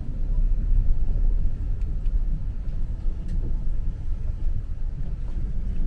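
A steady low rumble, with no rise or fall.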